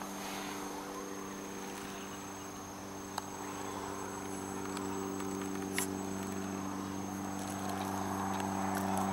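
Electric motor and gearbox of an RC scale crawler running at a steady low crawl, a humming whine with a thin high tone above it, growing louder as the truck climbs over tree roots toward the microphone. Two sharp clicks, about three and six seconds in.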